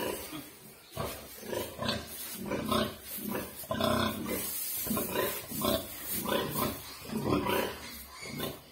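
Sow grunting over and over in short calls while she is farrowing.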